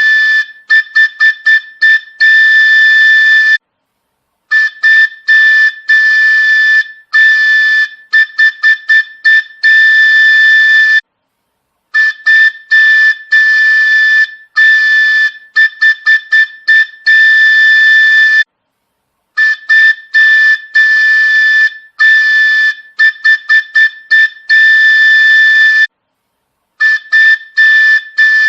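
Train horn sound effect: a single high-pitched, whistle-like tone blown in a repeating pattern of long blasts and bursts of quick short toots, the sequence looping every seven or so seconds with a short gap between repeats.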